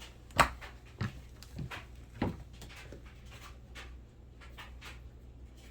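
Scattered short clicks and knocks, the sharpest about half a second in, with a few more around one and two seconds, over a low steady hum.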